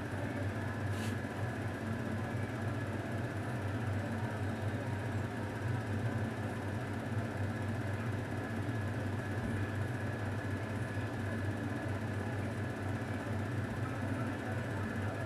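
A steady low mechanical hum with a faint steady higher tone above it, and one light click about a second in.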